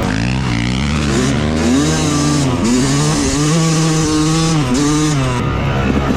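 Yamaha YZ250 two-stroke motocross engine with its stock exhaust, revving up and dropping back several times as the bike is ridden.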